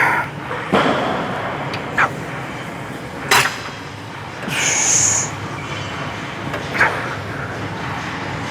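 Gym room noise: a steady hum with a few sharp knocks of gym equipment, and a brief high hiss about five seconds in.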